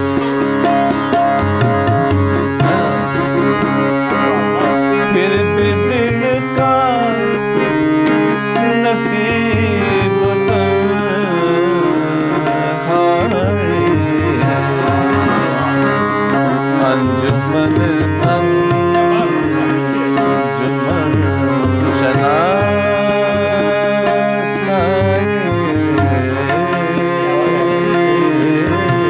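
Harmonium, tabla and sitar playing together in a ghazal: the harmonium holds sustained notes, the tabla keeps a steady rhythm, and a melody line glides between notes.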